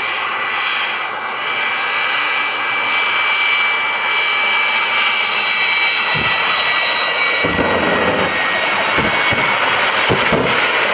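The Flash Fire jet truck's Pratt & Whitney J34 turbojet running at full power with the afterburner lit: a loud, steady jet noise with a high turbine whine over it, and deep rumbling surges breaking in from about six seconds in.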